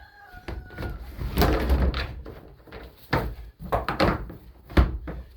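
A dog kennel tray being slid into the routed wooden rails under the roost, scraping about a second and a half in and knocking sharply against the boards several times.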